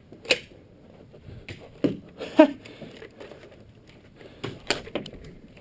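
Nerf battle in a small room: about half a dozen sharp clicks and knocks from foam-dart blasters and darts, irregularly spaced, the loudest a little over two seconds in.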